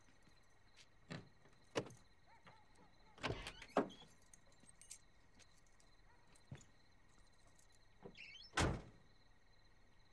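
Handling of a car door: a few sharp clicks and knocks, then a short squeak and the door shutting with a thunk near the end. A faint steady high tone runs underneath.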